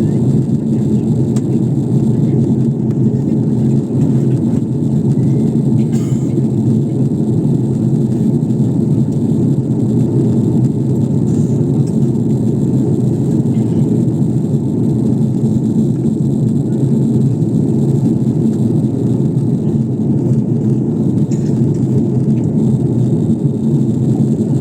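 Airliner cabin noise: a steady, low rumble of engines and airflow heard from inside the passenger cabin.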